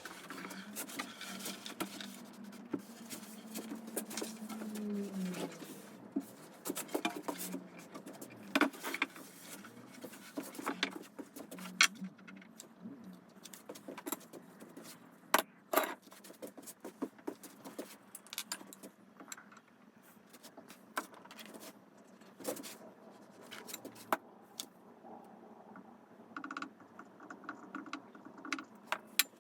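Workshop handling noises: scattered clicks, knocks and rattles of tools and parts being picked up and set down, with a short steady hum in the first few seconds that drops away and another brief hum near the end.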